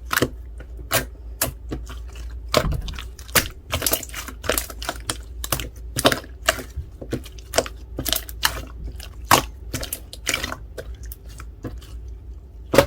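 Jelly slime being worked by hand, giving irregular sharp clicks and pops, about two or three a second.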